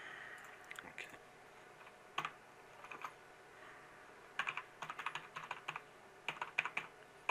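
Typing on a computer keyboard: a few separate keystrokes in the first three seconds, then quick runs of keystrokes about four and a half seconds in and again near six and a half seconds.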